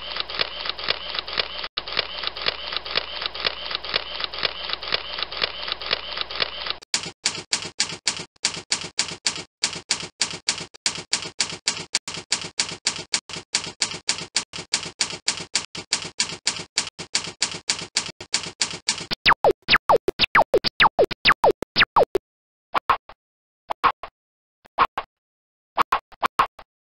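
Presentation-software typewriter sound effect accompanying text animating onto slides: a rapid run of key clicks, several a second, that changes in tone about seven seconds in. In the last third it breaks into short bursts of pitched blips with gaps between.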